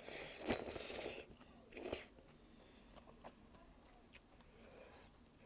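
Close-up mukbang eating of malatang: a loud noisy crunching bite lasting about a second, a shorter one just before two seconds in, then soft chewing clicks.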